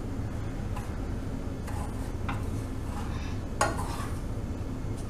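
A spoon stirring and scraping crumbly rice-flour dough in a saucepan, with a few scrapes and clinks against the pan; the loudest comes about three and a half seconds in.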